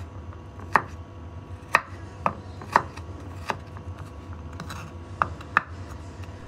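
Kitchen knife chopping peeled garlic cloves on a wooden cutting board: about seven sharp knocks of the blade on the board, unevenly spaced, roughly one a second with a quick pair near the end, over a faint steady low hum.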